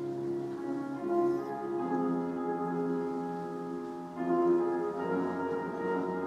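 Slow instrumental church music played on a keyboard, sustained chords that change about every second.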